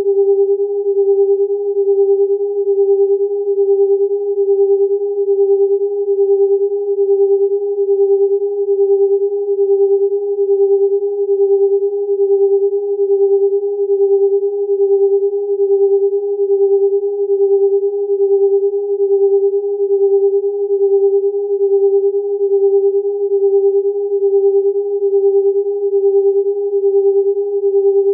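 Electronic sine-wave tones, a strong steady mid-pitched tone with a fainter one an octave above. The tones swell and fade evenly about once a second as closely tuned frequencies beat against each other.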